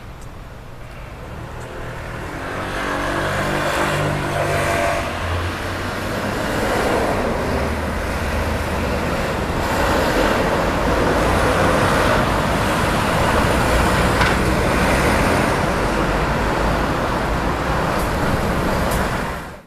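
Road traffic going through the crossing, loud and steady. About two seconds in, a vehicle accelerates with a whine that climbs in pitch, and the noise then stays high until it cuts off suddenly.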